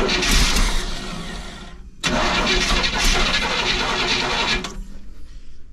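Carbureted motorhome engine, primed with fuel poured into the carburetor bowls, being cranked to start in two tries of about two seconds each, with a short pause between them.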